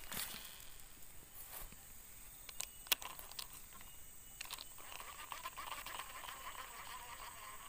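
Quiet clicks and knocks of a baitcasting rod and reel being handled, the sharpest about three seconds in, then a soft fast ticking from about five seconds in. A faint steady high insect drone runs underneath.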